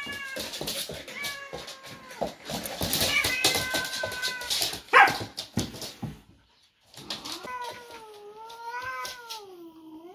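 Cat yowling in drawn-out, wavering calls, a defensive warning at a puppy pushing in on it, the longest call rising and falling over the last few seconds. Scuffling clicks of paws on the wooden floor, and one sudden loud burst about halfway through.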